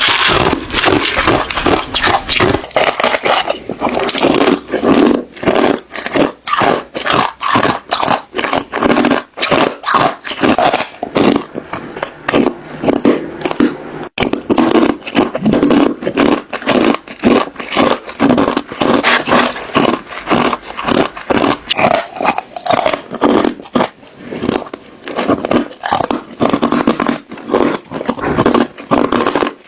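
Ice cubes being bitten and chewed close to the microphone: a dense, irregular run of loud crunches, several a second, without a break.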